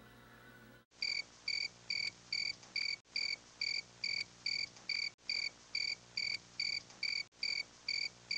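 Cricket chirping, laid on as a looped sound effect: an even run of identical short chirps, a little over two a second, starting about a second in after near silence.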